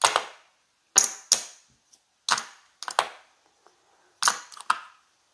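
Casino chips clacking together as they are picked up and restacked by hand: a series of sharp clacks in small clusters about a second apart.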